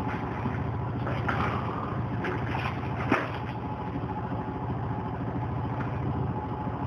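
A steady low mechanical hum, with a few brief rustles and one sharp click about three seconds in.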